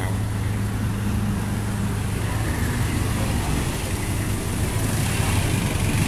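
Street traffic with a motor vehicle's engine running close by, a steady low hum.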